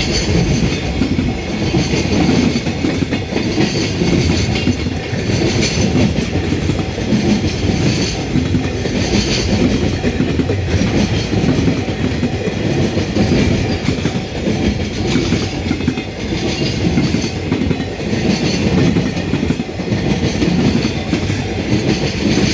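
Long freight train passing close by at a level crossing, its wagons' wheels clattering over the rail joints in a steady, repeating clickety-clack.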